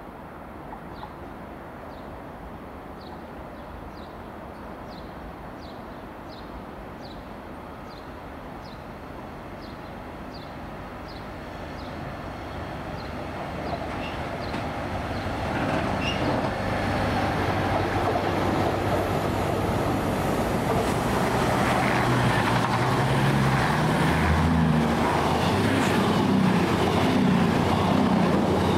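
Diesel train approaching, its engine and rail noise growing from faint to loud over the second half, with the engine note rising near the end.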